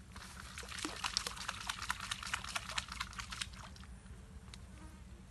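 Water splashing in a quick, dense crackle of small splashes at the surface for about three and a half seconds, then dying away, over a steady low rumble.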